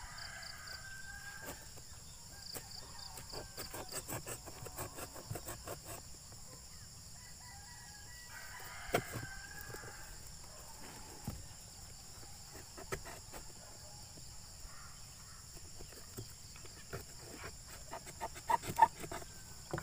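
Screwdriver tip poking and scraping through corrugated cardboard in runs of sharp clicks and rasps, thickest near the start and again near the end. A rooster crows once in the background about nine seconds in, over a steady high chirring of insects.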